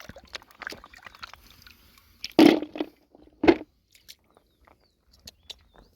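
Crackling, crunching handling noise of hands working through mud and shells in shallow water, with two much louder bursts about a second apart near the middle.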